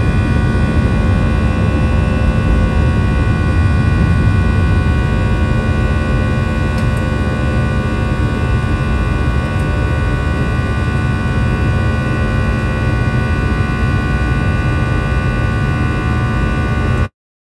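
Airplane in flight heard from inside the cabin: a steady low engine drone and rumble with several constant whining tones over it. It cuts off suddenly near the end.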